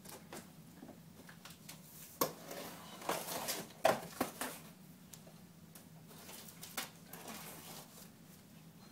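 Cardboard shipping box being opened by hand: scattered knocks, scrapes and rustles of cardboard and packing tape, busiest in the middle, with a last knock near the end.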